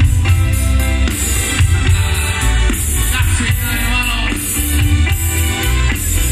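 Live grupera band playing over a concert PA: drum kit, heavy bass and guitars, with a singing voice carrying the melody.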